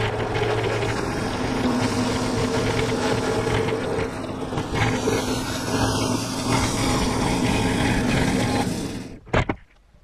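Norwood Lumberlite ML26 band sawmill running steadily, its engine and band blade cutting through a maple log. The sound drops away suddenly about nine seconds in, followed at once by a single sharp knock.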